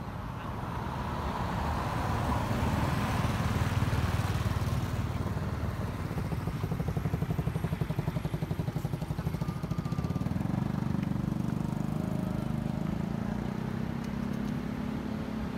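A motor vehicle passing on the road: a swell of tyre and engine noise peaking about four seconds in, then a low pulsing engine drone that settles into a steady hum.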